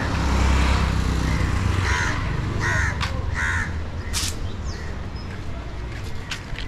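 Crows cawing, a run of short calls repeating about every three-quarters of a second. A low rumble sits under them, strongest in the first second, and a few sharp clicks come later.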